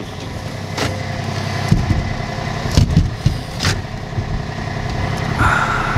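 An engine running steadily, with a few sharp knocks and clicks over it.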